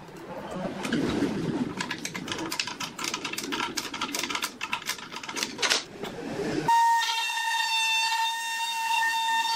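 Quick metallic clicks and rattles as a router bit is fitted and its collet tightened in a router-table plate. About two-thirds of the way in, this cuts abruptly to a table-mounted wood router running with a steady high whine, trimming the edge of a pine block with a bearing-guided bit.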